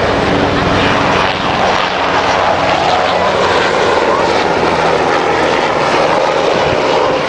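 Military helicopter flying low past the crowd, its rotor and engine running steadily and loudly.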